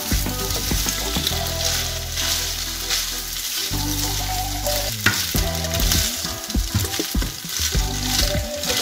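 Tagliatelle and prawns in cream sizzling in a frying pan as they are stirred and tossed with a plastic pasta server, with scraping and clicks of the utensil against the pan and a sharper knock a little past halfway.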